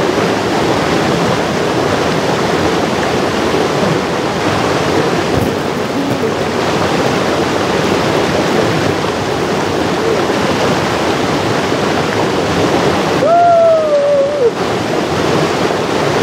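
Mountain stream rushing over boulders and small cascades: a steady, dense noise of white water. About thirteen seconds in, a brief high call slides down in pitch over roughly a second.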